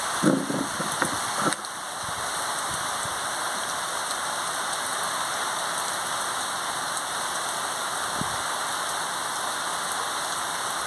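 Steady rain falling on the ground and roofs, an even hiss without a break. A few short knocks come within the first two seconds.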